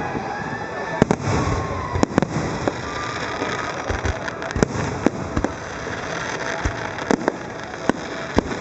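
Aerial fireworks bursting overhead: a string of sharp bangs at irregular intervals over a continuous crackle.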